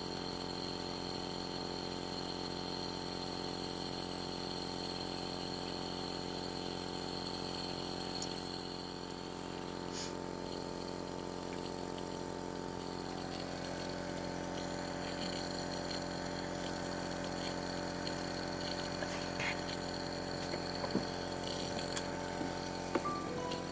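Compressor nebulizer's pump motor running with a steady hum while it turns liquid medicine into mist, with a few faint ticks.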